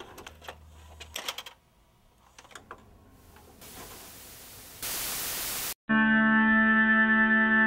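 Mechanical clicks from a VCR being operated, then television static hiss that grows louder and cuts off suddenly. About six seconds in, a steady held musical chord begins and is the loudest sound.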